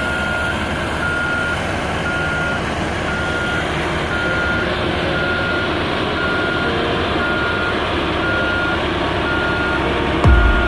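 Reversing alarm of a heavy construction machine, a single-tone beep repeating evenly about once a second, over the steady rumble of its diesel engine.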